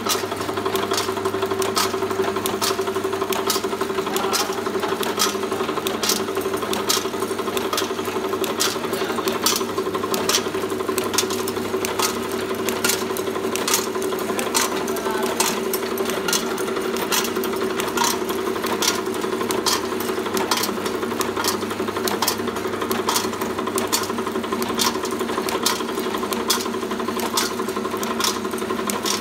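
Automatic vertical form-fill-seal pouch packing machine running: a steady motor hum with sharp mechanical clicks at an even pace, about two a second, as it cycles.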